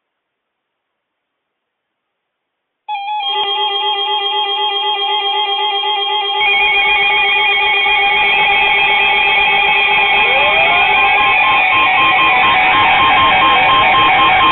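Silence, then about three seconds in, music with a plucked, guitar-like instrument starts and plays on, growing fuller with a low part about six seconds in.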